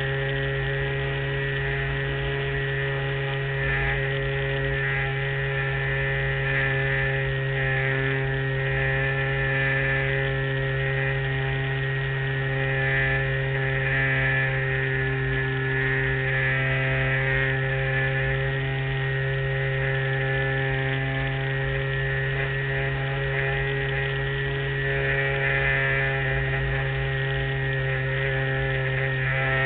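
LazyBee RC model airplane's motor and propeller running steadily in flight: a constant low hum with a higher whine that swells slightly now and then.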